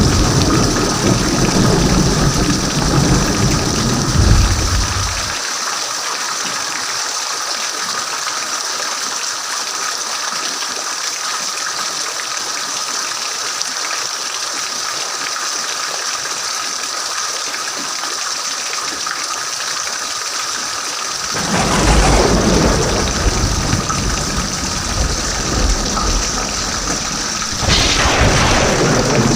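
Steady rain hissing, with rolling thunder: a deep rumble that fades out about five seconds in, another that begins about two-thirds of the way through, and a third near the end.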